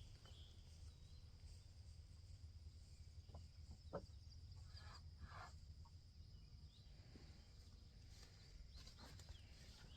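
Near silence: faint outdoor ambience with a low rumble and a few faint short sounds.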